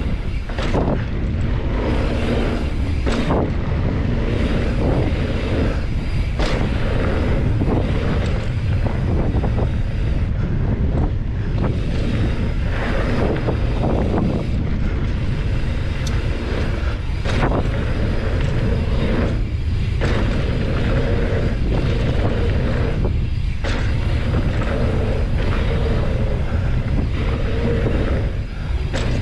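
Wind buffeting the microphone as a Trek Roscoe 9 mountain bike is ridden along a dirt trail, a steady heavy rumble, with separate knocks and clatters from the bike every few seconds over bumps and landings.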